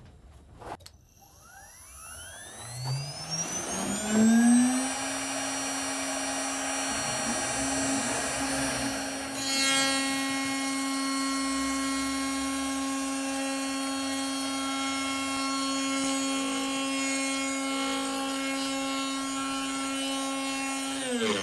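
CNC router spindle spinning up with a rising whine, then running at a steady pitch. About halfway through, a louder rushing machine noise joins it, and at the end the spindle spins down with a falling whine. This run was made with the bit not zeroed.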